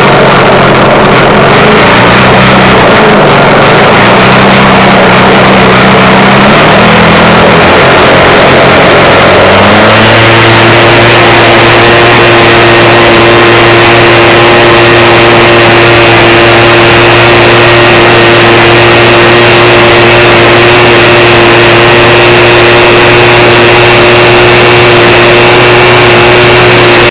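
Jamara Decathlon RC model airplane's motor and propeller heard from an onboard camera, very loud with heavy wind rush. The note wavers low for the first several seconds, then rises in pitch about ten seconds in and holds steady as the plane takes off and flies.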